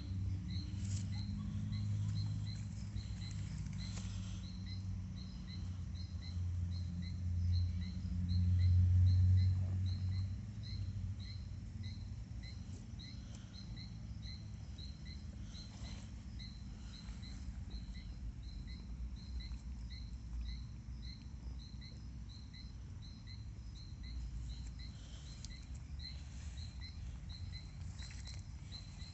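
A horse's gut rumbling, a low groaning gurgle that swells to its loudest around eight to ten seconds in and then settles to a quieter rumble. A faint high chirp repeats two or three times a second throughout.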